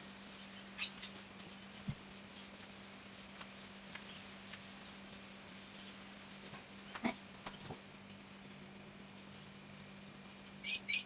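Quiet room tone with a steady low hum and a few faint taps, then a handful of brief high chirps near the end.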